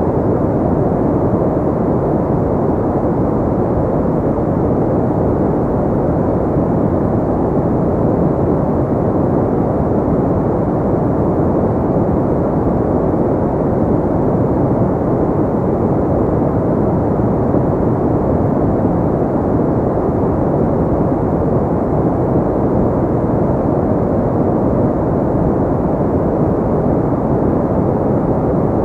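Steady, even white-noise soundtrack with its highs rolled off, so it sounds deep and muffled, like a low rushing hiss. It does not change at any point.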